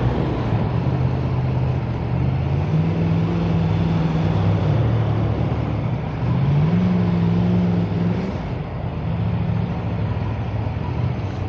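Motorcycle engine running under way with steady wind and road noise; its pitch rises twice, about two seconds in and again past the middle, and each time drops back a couple of seconds later.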